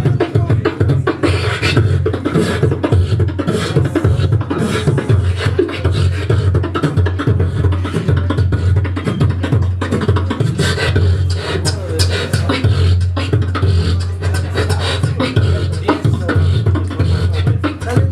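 Beatboxing into a cupped handheld microphone: a continuous deep bass line under dense, rapid percussive kick- and snare-like sounds.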